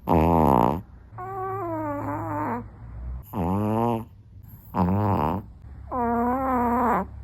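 An 8-pound dog snoring loudly in its sleep: five pitched, nasal snores in a row, about one every second and a half. Some are held at a steady pitch and others swoop down and back up.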